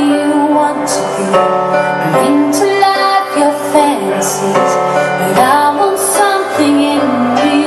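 A song with a woman singing over held chords and light percussion.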